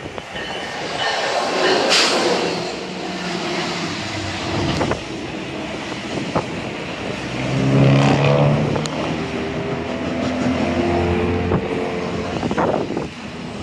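NJ Transit ALP-46 electric locomotive and its double-deck coaches passing close by at speed. There is a rush of noise as the locomotive goes by about two seconds in, then steady rolling and rumbling of the coaches. A droning, pitched tone joins in from about seven seconds to near the end.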